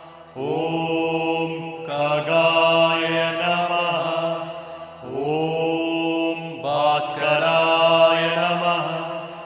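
A voice chanting a Hindu devotional mantra in long, held phrases over a steady low drone, with short breaks between phrases.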